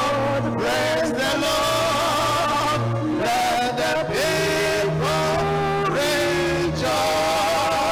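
A man singing a slow gospel hymn into a microphone, holding long notes that step from pitch to pitch over a steady low sustained accompaniment.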